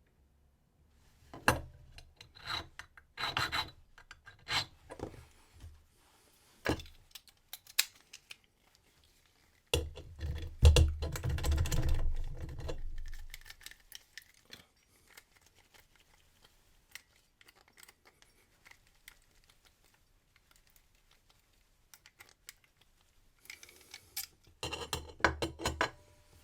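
Hand file rasping on a brass key blank in short runs of strokes, with small clicks and handling noises in the pauses between runs. This is key impressioning: the blank is filed down at the marks left by the lock's wafers.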